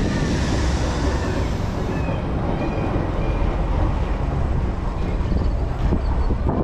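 Steady low rumble of a Technical Park balloon tower ride running, with wind buffeting the microphone as the ship-shaped gondola turns at height.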